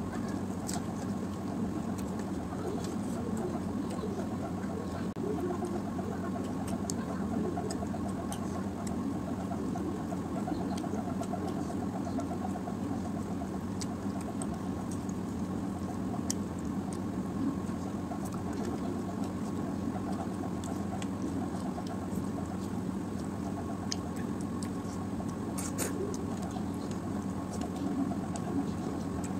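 A steady motor hum, like a room fan running, with scattered small clicks of someone eating by hand from a steel plate: chewing, lip smacks and fingers on metal.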